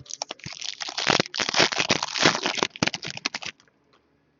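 A trading-card pack wrapper crinkling and crackling as it is handled and torn open, a dense run of quick crackles that stops abruptly about three and a half seconds in.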